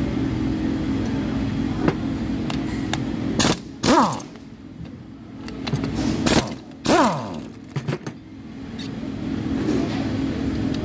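A power tool on a socket extension runs twice in short bursts on the connecting-rod cap bolts of a stripped-down engine. Each burst winds down quickly in pitch, and a few small clicks follow. A steady machine hum carries on underneath.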